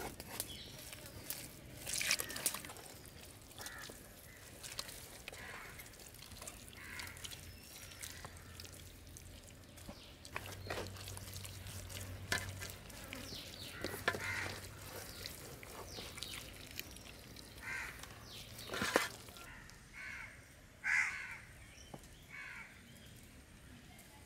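Crows cawing now and then, short calls spaced several seconds apart, with scattered faint clicks and knocks.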